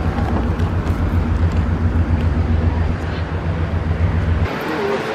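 A taxi's engine running with a steady low hum, which cuts off abruptly about four and a half seconds in.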